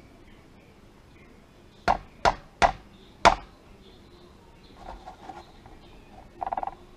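Four sharp taps driving a trigger group pin through the gun's receiver, the last one slightly delayed, followed by a few lighter metallic clinks and a brief ringing rattle of small parts near the end.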